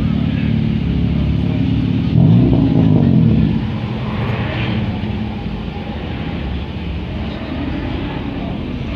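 Car engines running as cars roll slowly past, a low steady drone. A bit over two seconds in, one engine revs up for about a second, the loudest moment, then eases back.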